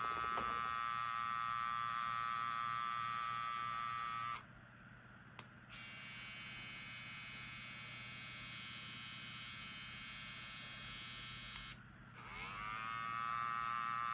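Two cordless hair trimmers, a Cocco Hyper Veloce and a Wahl Hi Viz, run one after the other with a steady electric buzz and hum. The first stops about four seconds in. After a short pause the second runs slightly quieter and stops near 12 seconds. The first then starts again, its pitch rising as it spins up.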